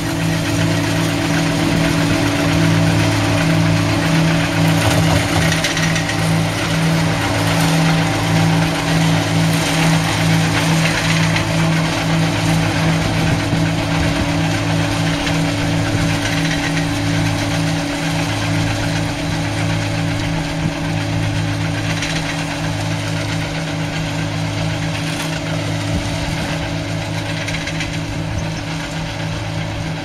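New Holland VL660 grape harvester working a vine row: its engine runs steadily under a regular low throb, with a dense noisy hiss from the harvesting over it. It grows gradually quieter in the second half.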